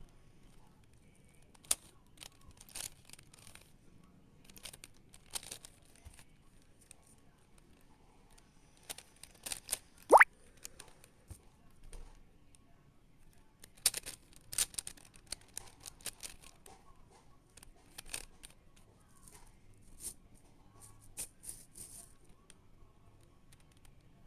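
Plastic Rubik's-type cube being turned by hand: irregular runs of clicking, rattling layer turns with short pauses between them. About ten seconds in comes one short, loud, rising squeak.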